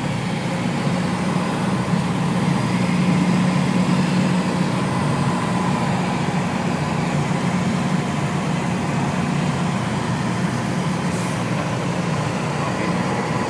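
Piper Warrior III's four-cylinder Lycoming engine and propeller droning steadily, heard inside the cockpit, with a steady rush of airflow over it.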